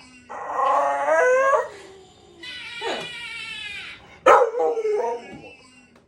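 Pit bull vocalizing in three drawn-out, pitched howling and whining calls; the middle one is higher and falls in pitch.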